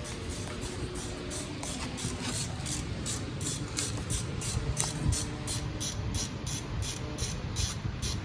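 Hand ratchet wrench clicking in quick, regular strokes, about three or four a second, while bolts on the cylinder head's cam caps are worked loose.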